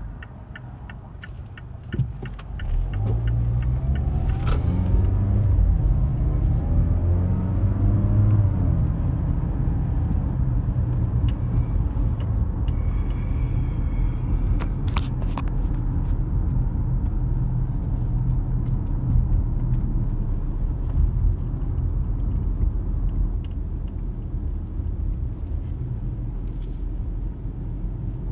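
Steady low rumble of a car heard from inside the cabin, growing louder about two seconds in, with faint wavering tones for a few seconds early in the rumble.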